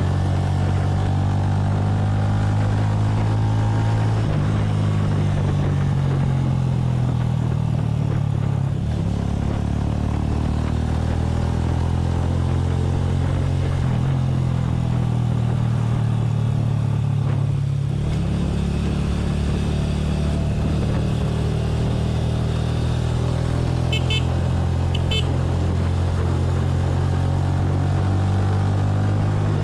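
Small motorcycle's engine running steadily as the bike cruises along the road, heard from on the bike, its pitch rising and falling a little with the throttle.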